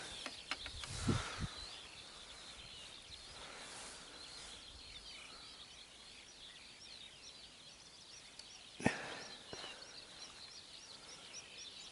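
Faint outdoor ambience of small birds chirping steadily in the distance, with a light knock near the start and a sharper click about nine seconds in.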